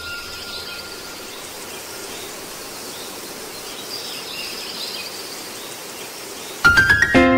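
Steady nature ambience of chirping insects and birds. About six and a half seconds in, a loud, quick rising run of bright musical notes breaks in and rings on as held tones.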